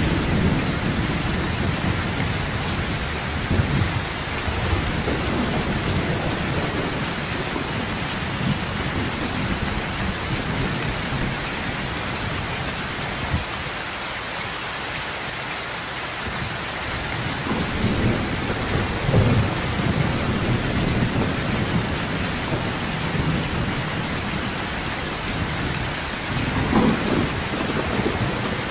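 Heavy, steady rain with rolling thunder: low rumbles swell near the start, about two-thirds of the way through, and again near the end.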